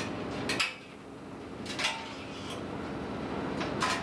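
A fishing boat's engine running steadily, with sharp metallic clanks every second or two. The loudest clanks come about half a second in and near the end, each with a brief ring.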